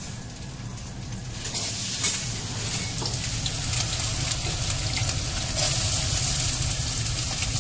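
Sliced onions and ginger frying in hot oil in a steel kadai: a steady sizzle that swells about a second and a half in, with a few light taps and scrapes of a steel spatula stirring.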